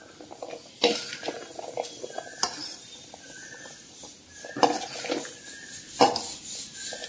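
A metal spoon stirring boiled black chickpea chaat in a steel bowl: scraping and clinking against the metal with brief high squeaks, and sharper knocks about a second in and again near six seconds.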